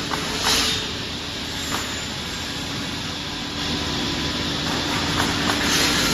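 CNC automatic wood cross cut-off saw machine running, with a steady hum. A short burst of hissing noise comes about half a second in, and a few sharp clicks follow later.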